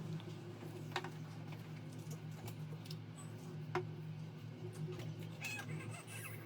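A steady low hum with a few light clicks over it: a sharper click about a second in, another near four seconds, and a cluster of small clicks near the end.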